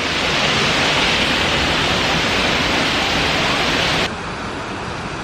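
Waterfall rushing in a steady, loud roar of falling water. About four seconds in it cuts abruptly to a quieter, duller rumble.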